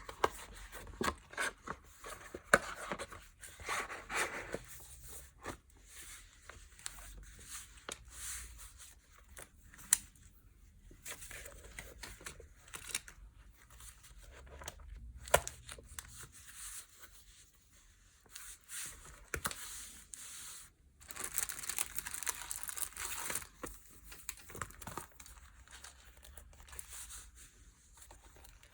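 Packaging being unwrapped by hand: paper and plastic wrapping crinkling, rustling and tearing in irregular handfuls, with a few sharp ticks. A longer, denser rustle comes about two-thirds of the way in.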